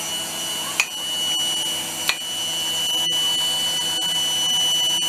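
A steady mechanical hum with a thin high whine, likely a kitchen fan or appliance. Over it come a few light clinks of a metal spoon against the steel pot and the plate as kuymak is spooned out. The hum cuts off suddenly near the end.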